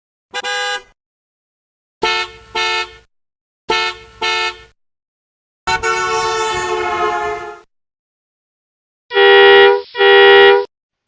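A series of vehicle horn honks separated by silence: one short honk, two quick double honks, a long honk lasting about two seconds, then a louder double honk near the end.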